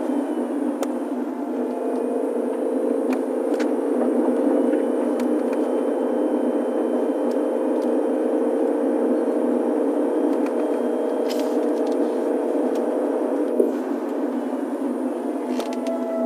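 2019 Hyundai Kona Electric heard from inside the cabin while driving: steady road and drivetrain noise with a hollow clicking or tapping that the owner suspects comes from the reduction gear or the electric motor, and that stops when he lifts off the accelerator. A steady tone runs under it and cuts off sharply about 13 seconds in.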